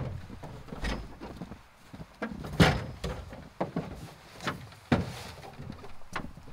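A Wenonah Escapade canoe being lifted off a pickup truck's roof rack: a string of knocks and thumps as the hull bumps the rack, the loudest about two and a half seconds in, then a few lighter knocks as it is carried away.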